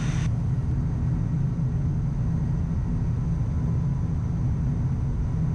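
Steady low rumble of airflow and engines inside a Gulfstream business jet's cockpit on final approach, gear down and flaps at 40.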